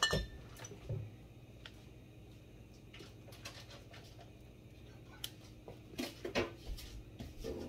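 Scattered knocks and clatters of kitchen items being handled, a few just after the start and a cluster in the last few seconds, over a faint steady low hum.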